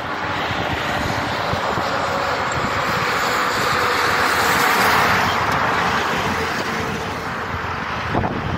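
A road vehicle passing on the highway: a steady rush of engine and tyre noise that swells to its loudest about halfway through and then fades, with a short knock near the end.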